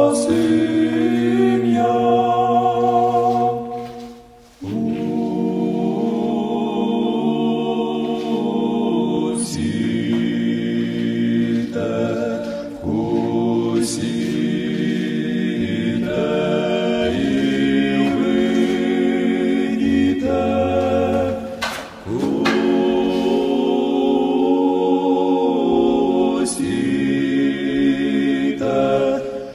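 A choir singing slow, held chords in a chant-like style, with a brief break about four seconds in.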